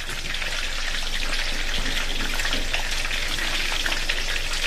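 Pork knuckles deep-frying in a pan of hot oil: a steady sizzle and crackle as the skin, nearly cooked, turns crisp.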